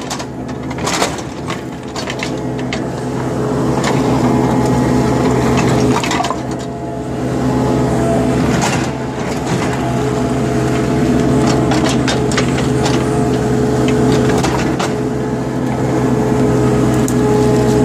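Earth-moving machine engine running steadily under load, with repeated knocks, scrapes and cracks from a bucket digging into dirt and stones.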